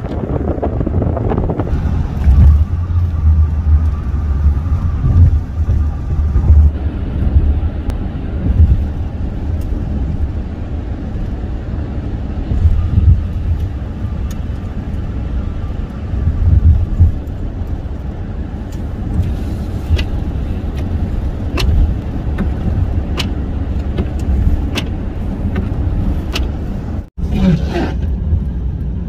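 Car driving on a snow-covered road: a loud, steady low rumble of tyres and wind on the microphone, with a few sharp ticks in the second half. The sound cuts out for a moment near the end.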